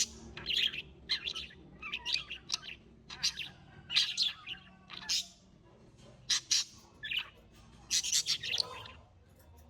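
Birds chirping: a rapid, irregular series of short, high chirps that stops shortly before the end.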